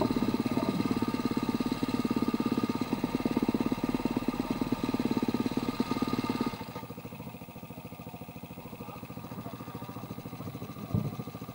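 Dirt-bike engines, the nearest a Husqvarna TE310R single-cylinder four-stroke, idling with a steady pulsing beat. About six and a half seconds in, the loudest engine cuts off suddenly, leaving fainter idling from the bikes ahead. A short knock comes near the end.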